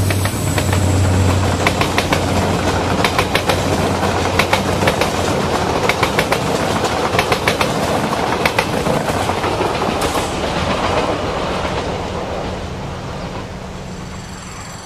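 Diesel-hauled SNCF passenger train passing close: the locomotive's engine drone at first, then the coaches' wheels clattering over rail joints in repeated clicks, the noise fading away as the last coach goes by.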